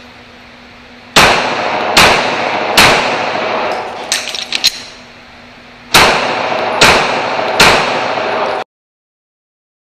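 Six 9mm shots from a Glock 17 pistol in two strings of three, each shot about 0.8 s apart, with a pause of about three seconds between the strings. Each shot rings on in the echo of an indoor range. A few light metallic clinks come between the strings, and the sound cuts out abruptly near the end.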